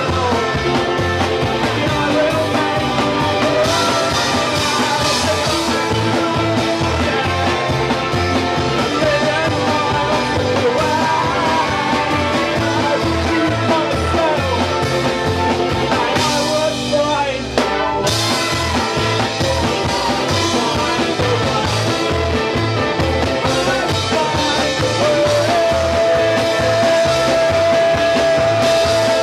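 Live band playing loud rock music, a singer shouting into the microphone over double bass and electric guitar. The music thins out briefly about two-thirds through, and a single high note is held near the end.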